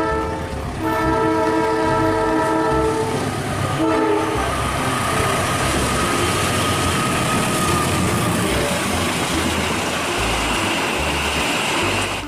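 Diesel locomotive horn sounding a multi-tone chord in three blasts: one ending just under a second in, a longer one of about two seconds, and a short one about four seconds in. Then a train passes close by with a steady loud rush of wheels on rails, which cuts off suddenly near the end.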